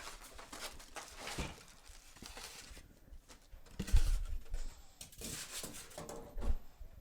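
Computer parts being handled: rustling and light clicks, with one sharper knock about four seconds in and a couple more knocks near the end.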